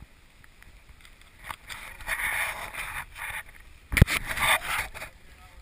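Rustling and rubbing from footsteps through dry leaf litter and the camera being handled, in uneven bursts, with one sharp knock about four seconds in.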